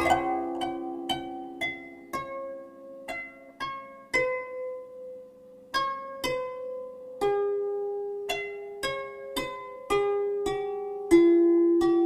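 Background music: a slow melody of single plucked-string notes, each ringing out and fading, over held lower notes.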